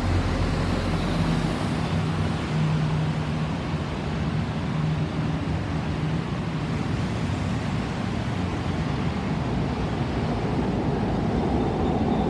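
Steady road traffic: vehicle engines running with tyre noise on the road.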